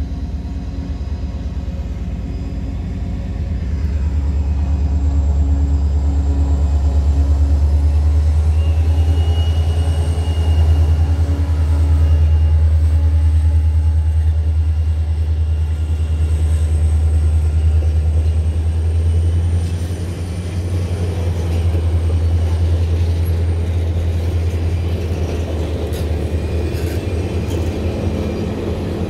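Alaska Railroad diesel locomotive passing close by with a loud, steady low engine rumble. After about twenty seconds the rumble eases and the passenger cars roll past with steel wheels clattering on the rails.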